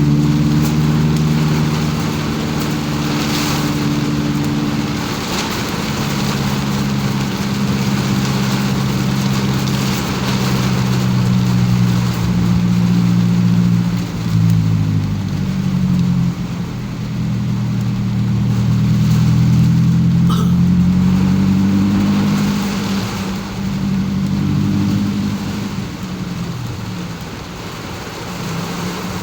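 Car engine running while driving, its pitch rising and falling several times as it accelerates, eases off and shifts gear, over a steady hiss of tyres on a wet road in the rain.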